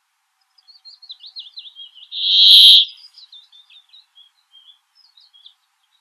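Male brambling singing: one loud, drawn-out wheezy buzz about two seconds in, lasting under a second. Quick, softer, high chirping notes run before it and trail on after it.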